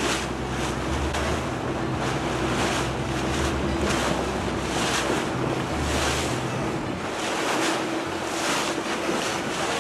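A boat under way on the Grand Canal: a steady engine hum under the rush of water and wind buffeting the microphone, with a deep throb about every two and a half seconds.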